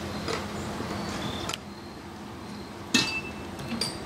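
Metal clinks and knocks from railroad car end hardware being handled, with one sharp ringing clank about three seconds in. A steady background hiss cuts off about a second and a half in.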